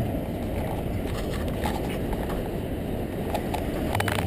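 Steady low rumble of wind buffeting an action camera's microphone outdoors. Near the end it gives way to a low steady hum.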